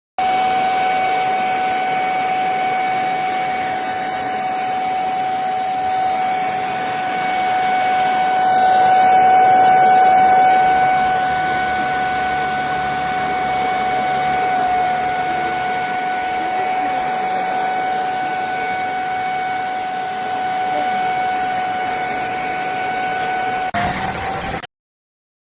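Handheld mattress vacuum cleaner running: a steady high motor whine over the rush of air, a little louder for a few seconds in the middle, stopping abruptly near the end.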